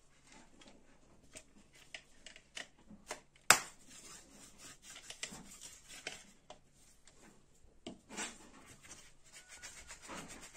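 Steel mixer-grinder jar being tapped and knocked against a plastic bowl to empty out ground rice flour, with light scraping and rubbing between the taps. One sharp knock about three and a half seconds in is the loudest.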